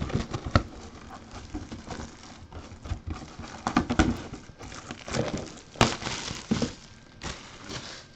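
Hands handling a cardboard box on a wooden tabletop: irregular knocks, scrapes and rustling, with one sharper knock near the end.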